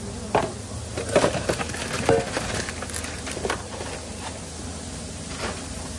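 Clatter of a stainless steel bowl and kitchen utensils being handled: a string of sharp, irregular knocks and clicks over a steady low hum.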